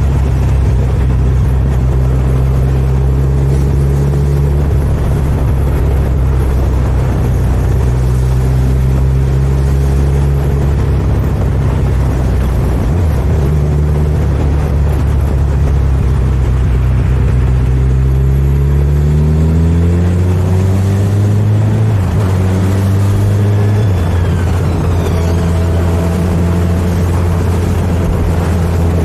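Motorcycle engine running as the bike rides through traffic, a low steady note with road noise, rising in pitch as it accelerates about two-thirds of the way through.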